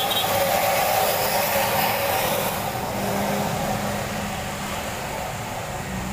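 Traffic on a wet road. A heavily loaded dump truck's diesel engine runs past with the hiss of tyres on wet tarmac, and motorcycles and cars go by. The tyre hiss is strongest in the first couple of seconds and then eases as the truck moves off.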